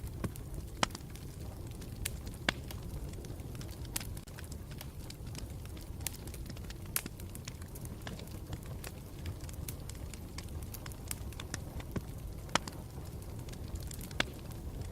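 Campfire burning with a steady low rumble and irregular sharp crackles and pops from the wood, a few every second.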